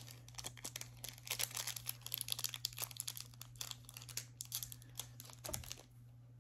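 Pokémon trading card booster pack's foil wrapper being torn open and crinkled by hand: a dense run of sharp crackles that stops shortly before the end.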